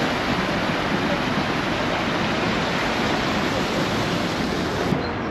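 City street ambience: a steady, even rush of noise with no distinct events.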